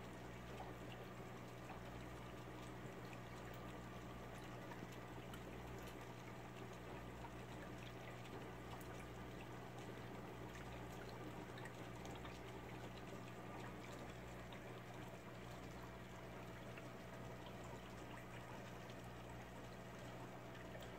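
Aquarium filter running: a faint, steady trickle of water with a low hum underneath.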